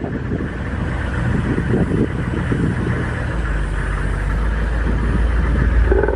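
Tour vehicle's engine running, a steady low rumble that grows stronger about three seconds in.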